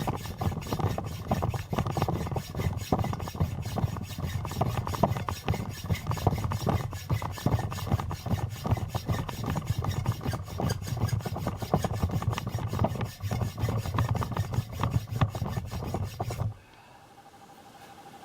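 Decorative cut being worked into a steel bar: a rapid, even scraping, several strokes a second, that stops abruptly near the end.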